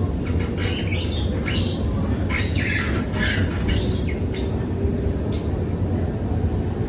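Alstom Movia R151 metro car running, heard from inside the car: a steady low rumble, with a run of short high-pitched screeching bursts from the wheels and running gear during the first four seconds or so.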